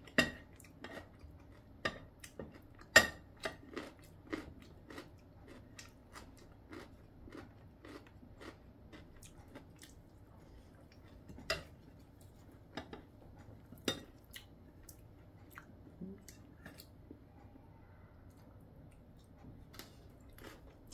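Close-up chewing and biting of food, with many sharp, crunchy clicks. A spoon scrapes and taps the plate in the first few seconds.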